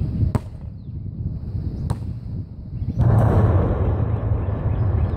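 Basketball hitting hard surfaces: two sharp single bangs about a second and a half apart. About three seconds in, a steady low rumble with a hiss sets in and runs on.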